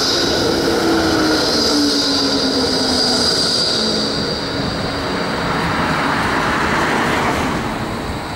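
Bombardier E2 Class tram passing close by, its wheels squealing on the rails in one high steady tone that fades out about halfway through. Under the squeal, a lower motor whine falls steadily in pitch as the tram slows into the stop, over the rumble of the wheels.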